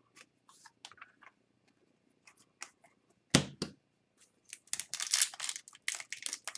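Hands handling hockey cards and foil card packs: light clicks and rustles, a single knock about three and a half seconds in, then dense crinkling of a foil card pack wrapper being handled and opened near the end.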